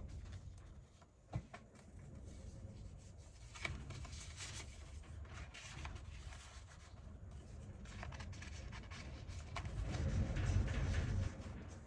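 Paper being handled and rubbed on a tabletop, with a sharp tap a little over a second in and louder rustling near the end.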